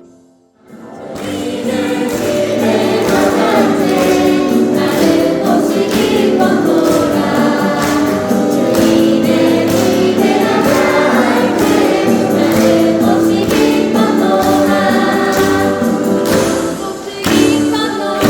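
A choir singing a Christian hymn with instrumental accompaniment, coming in about a second in after a brief pause.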